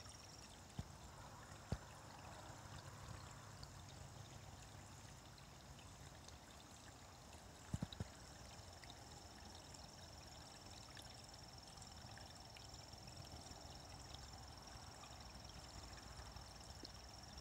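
Faint trickle of a small creek running into a shallow pool, with a steady high-pitched tone above it and a few short clicks.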